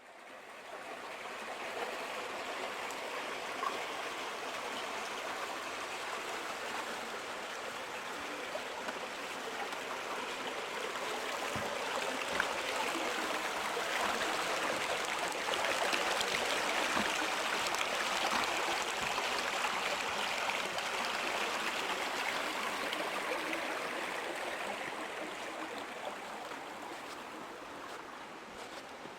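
A small waterfall's steady rush of falling, splashing water, swelling a little past the middle and easing toward the end.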